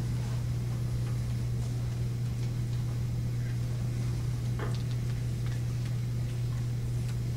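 Meeting-room room tone: a steady low hum with scattered light clicks and taps.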